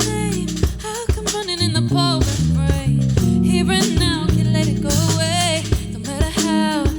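Live R&B band music: bass guitar and guitar playing, with a melodic line on top that slides and bends between notes.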